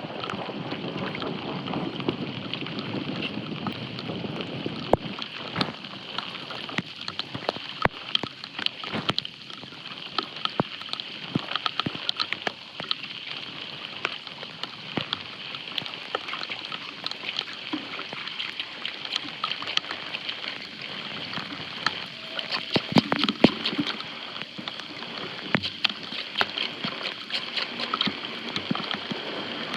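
Floodwater gurgling and sloshing as it drains, steady throughout, with many short sharp clicks and knocks scattered over it.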